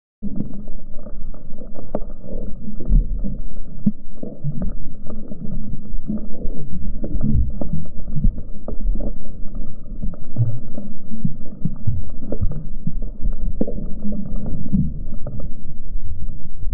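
Muffled low rumbling and sloshing of water heard through a submerged camera, with scattered sharp knocks. It cuts in suddenly just after the start.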